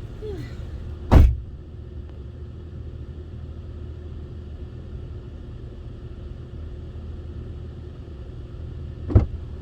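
Steady low rumble of a vehicle, heard from inside. Two sharp thumps, one about a second in and one near the end.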